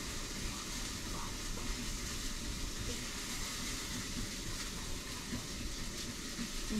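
Steady hissing background noise with no distinct event standing out.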